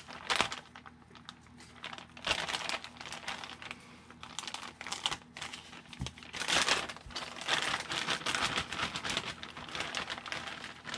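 Clear plastic kit parts bag crinkling in irregular bursts as it is opened and handled to get at the shock parts.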